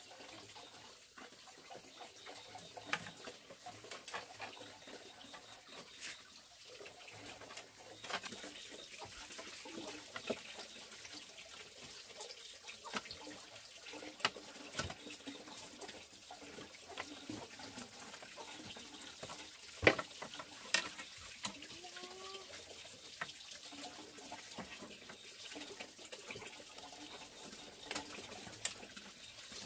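Scattered clicks, knocks and scrapes of bamboo being worked by hand with a knife, the sharpest knock about two-thirds of the way in, over the steady rush of running stream water. A few short chirps, likely a bird, come shortly after the loud knock.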